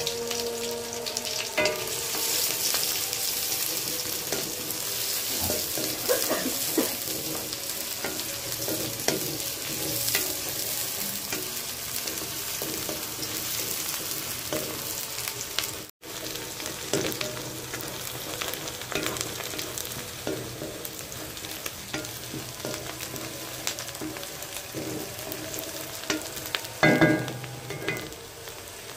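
Sliced onions sizzling and frying in hot oil in a wok, with a spatula stirring and scraping against the pan. A brief louder scrape or clatter comes near the end.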